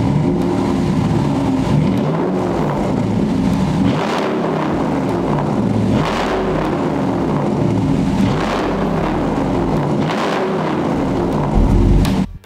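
Ram pickup truck with a straight-pipe exhaust, idling briefly and then revved over and over, about one rev every two seconds. It cuts off suddenly near the end.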